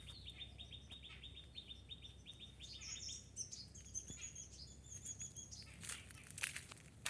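Faint forest birdsong: a fast run of short chirps repeated at one pitch for the first few seconds, then thin, higher notes from another bird. Two short crackles come near the end.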